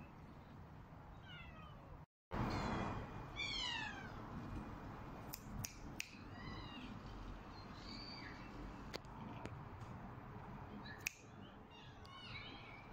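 Cat meowing repeatedly in short calls, some falling in pitch and some rising and falling, with a few sharp clicks in between.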